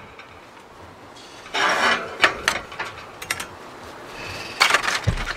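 A wire smoker cooking rack being handled: metal scraping and clinking on a tile tabletop in a couple of rasping spells with scattered clicks, and a dull thump near the end.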